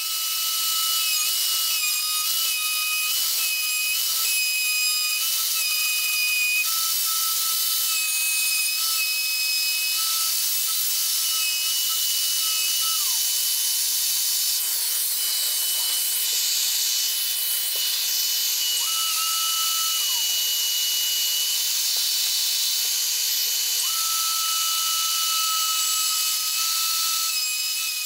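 Plunge router running and cutting inlay grooves in an oak tabletop: a steady high-pitched whine over a continuous rushing cutting noise.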